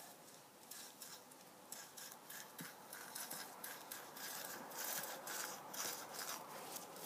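String being pulled out of a trick chewing-gum prop: faint, irregular scratchy rubbing strokes, several a second, as the string slides through the fingers.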